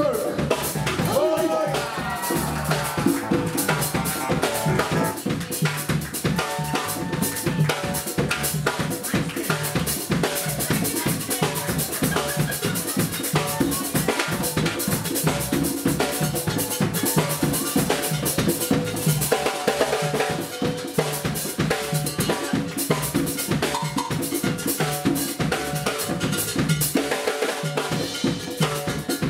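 Live Latin band playing a busy percussion-led groove: hand drums and a drum kit keep a steady rhythm, with saxophone over it.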